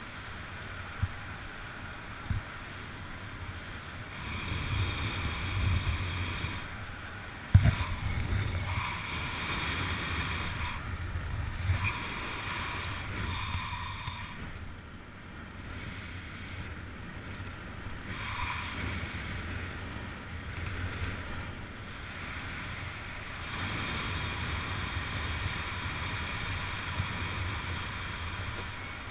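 Wind rushing over the microphone during a parachute descent under an open canopy, swelling and fading in gusts. A sharp knock about seven and a half seconds in is the loudest sound.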